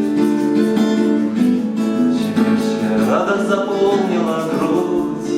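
Acoustic guitar strummed, playing a song.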